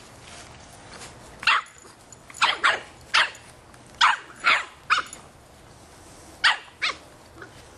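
A 3½-month-old Boston Terrier puppy barking, about nine short barks in uneven bursts, with a pause of over a second before the last couple.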